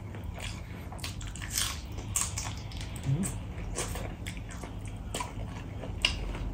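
A person chewing a mouthful of rice and curry close to the microphone, with irregular short smacks and clicks of the mouth.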